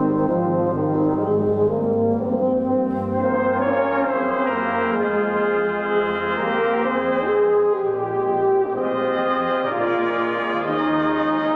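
Brass band of cornets, euphoniums and trombones playing a slow piece in sustained, held chords that change every second or two.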